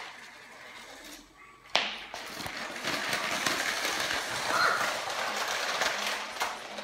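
Motorised Lego high-speed train running fast over plastic track: a dense rattle of wheels clattering over the track, with the motor whirring. It starts with a sharp knock about two seconds in.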